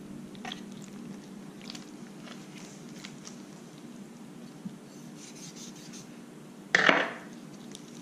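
Faint scraping and handling sounds of a pufferfish being skinned and gutted with a fillet knife on a wooden cutting board, over a steady low hum. About seven seconds in comes one louder, short clatter as the knife is set down on the board.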